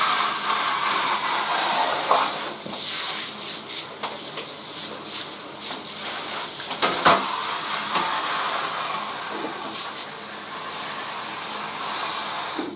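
Shower spray running onto the PC case's plastic side window, rinsing off the sanding residue: a steady hiss of falling water, with a couple of brief knocks about seven seconds in. The water stops just before the end.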